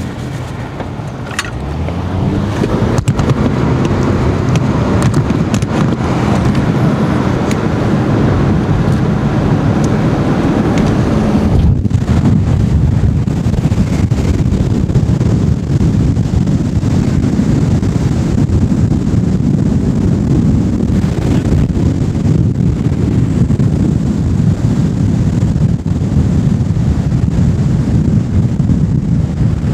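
Car engine accelerating, its pitch climbing steadily for about ten seconds. After a sudden break about twelve seconds in, a steady low rumble of road and wind noise from the moving car.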